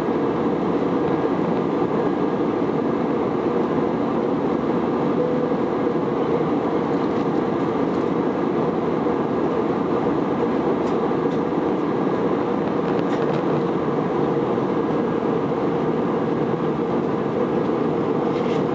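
Steady cabin noise of an Airbus A320-200 in flight, heard inside the cabin by the wing: an even drone of engines and rushing air with a constant low hum.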